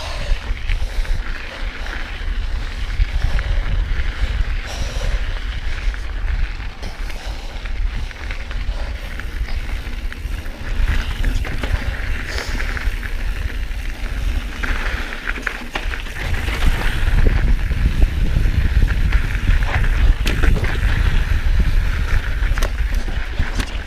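Mountain bike being ridden along a dirt trail: tyre noise and the bike rattling and clicking over rough ground, with wind rumbling on the microphone, a little louder in the second half.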